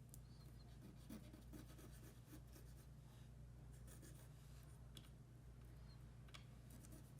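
Faint scratching of a tin solder stick being drawn across paper in short scattered strokes, over a steady low hum.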